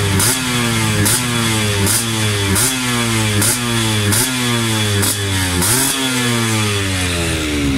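Yamaha DT two-stroke single-cylinder engine revved through its tune pipe (expansion-chamber exhaust) in short throttle blips, about one every 0.8 s. Each blip jumps up quickly and then falls away in pitch.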